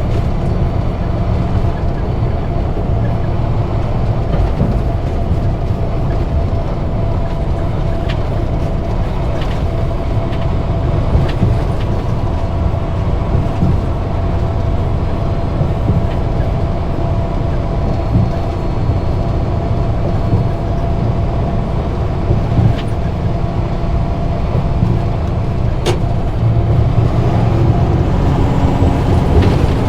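Semi truck running down the road, heard from inside the cab: steady low diesel engine drone and road noise with a constant whine. Near the end the engine note changes and gets a little louder.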